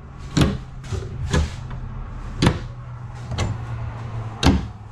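Wooden cabinet doors being opened and shut, their catches clicking: about five sharp knocks roughly a second apart, over a steady low hum.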